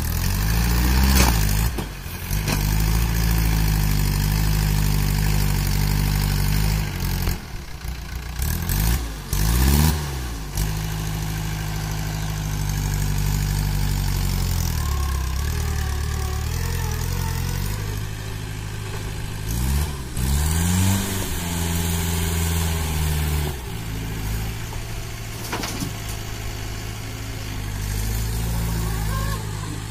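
Mahindra tractor's diesel engine working a front-end loader digging and lifting soil. It runs steadily and revs up and back down three times, about a second in, around ten seconds and around twenty seconds in.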